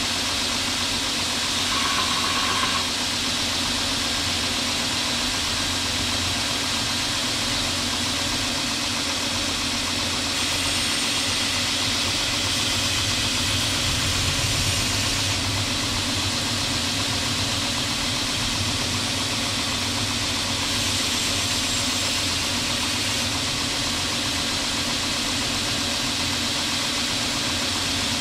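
KMG belt grinder running steadily while steel is ground against its abrasive belt, with a grinding hiss that swells twice.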